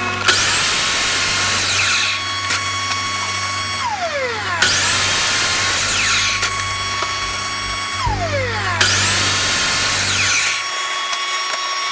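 Electric saw making three cuts in a wooden board. Each time the motor starts, runs with a steady whine for about two seconds, and then falls in pitch as the blade spins down. The cycles start at the beginning, about four and a half seconds in, and about nine seconds in.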